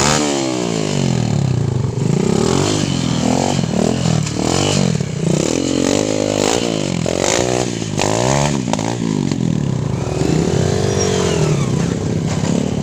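Small motorcycle engine revved up and down over and over, its pitch rising and falling about once a second, under load as the bike is worked over a rough, rocky track. A longer, slower rev swells near the end.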